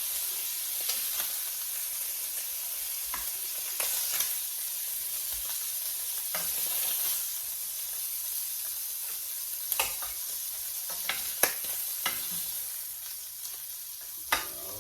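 Chicken thighs sizzling in melted butter in a deep skillet over medium-high heat, a steady frying hiss. Scattered sharp clicks and taps of a utensil are heard a dozen or so times.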